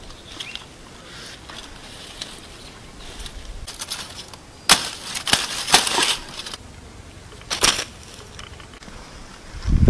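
Pineapple stalk being cut and broken off during harvest: a cluster of sharp cracks about halfway through, and one more crack a little later, with light rustling of stiff pineapple leaves before them.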